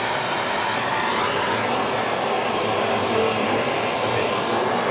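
Hand-held gas torch burning with a steady hiss as its flame heats a brass piece for tinning with solder.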